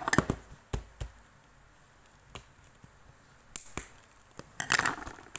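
A sticker parcel being handled: a few sharp taps and low knocks in the first second, a couple of faint ticks, then short bursts of packaging rustle near the end.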